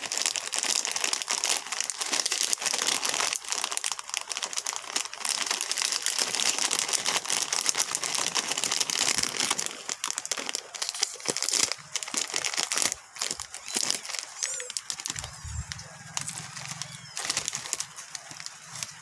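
Plastic snack wrapper crinkling and rustling as it is handled and opened, a dense run of crackles that thins out over the last third.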